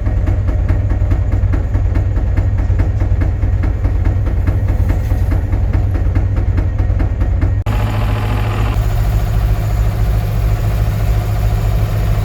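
Heavy engine of a sheet pile driving rig running under load, with rapid, regular knocking. About eight seconds in the sound cuts off abruptly to a steadier engine drone.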